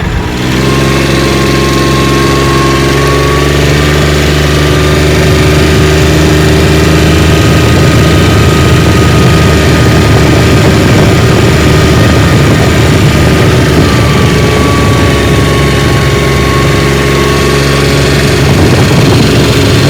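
Kioti CK3510SE compact tractor's diesel engine running steadily, with a faint high whine riding over it.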